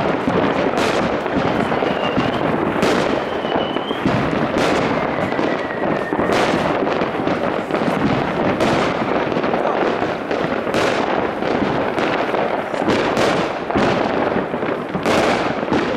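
Many fireworks going off across a town at once: a continuous crackle and rumble of distant bangs, with frequent louder bangs at irregular intervals. In the first few seconds rockets whistle, one whistle falling in pitch before a bang about six seconds in.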